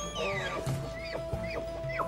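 Documentary background music with a long held note, with a few short, sharp sounds over it.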